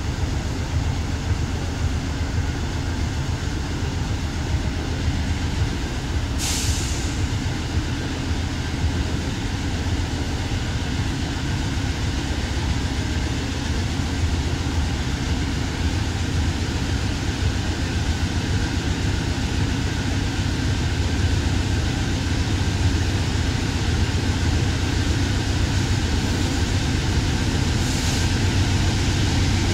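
Lead CSX GE Dash 8-40CW (CW40-8) and trailing GE diesel locomotives working under power with a loaded freight train, a steady low engine rumble growing slowly louder as they approach. A short hiss about six seconds in.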